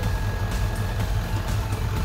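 Background music over the steady low running of a 1996 Ford dump truck's 7.3-litre diesel engine.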